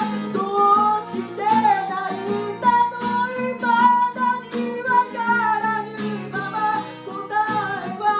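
Acoustic guitar strummed in chords while a voice sings a melody over it.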